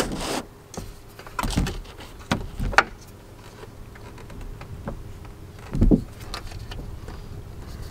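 Hands handling a solar panel's aluminium frame and mounting bracket as the bracket is pressed onto VHB tape on a trailer roof. A few short rubs, scrapes and squeaks, with a heavier bump about six seconds in.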